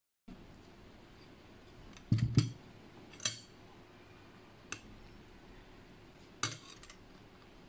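Stainless steel spoon and chopsticks clinking against a glass bowl of noodles in broth. A cluster of clinks with a dull knock comes about two seconds in, then single clinks, and another pair near the end.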